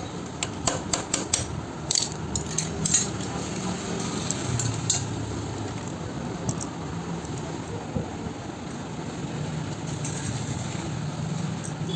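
Metal engine parts and tools clinking as they are handled, a quick run of sharp clinks in the first three seconds, then a few scattered ones, over a steady low hum.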